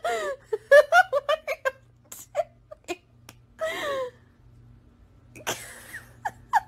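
A person's high-pitched laughter in a quick run of short bursts, breaking off about two seconds in, followed by a few breathy laughing gasps and small clicks.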